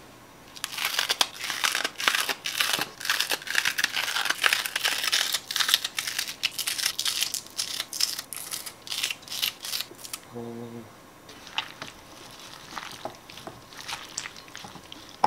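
Kitchen scissors snipping green onion into a glass bowl in a long run of quick, crisp cuts. Near the end, quieter rustling and clicking as a gloved hand starts mixing squid and dried radish in the bowl.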